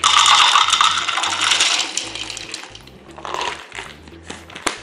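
Shelled peanuts poured from a jar into a clear plastic chopper bowl, rattling densely for about two seconds, then a shorter, weaker rattle and a single click near the end.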